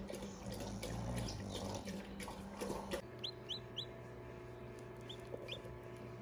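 Newly hatched chicks peeping: three quick high peeps about three seconds in and two more a couple of seconds later, over a steady low hum, with light rustling and clicks before the peeps.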